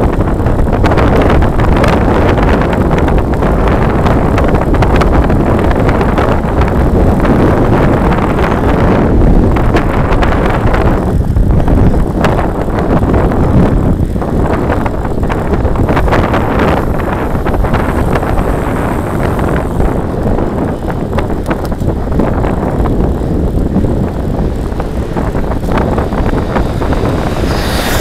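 Loud, steady wind buffeting on the microphone of a camera mounted on a road bike's handlebars while riding at speed.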